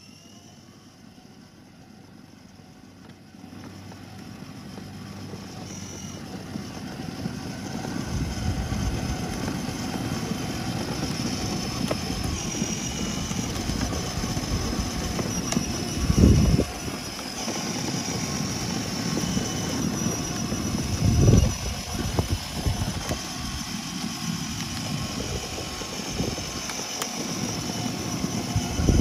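Battery-powered ride-on toy jeep driving on asphalt: the steady whir of its electric drive and the rolling noise of its plastic wheels, building over the first several seconds and then holding steady. Two brief loud low thuds come about sixteen and twenty-one seconds in.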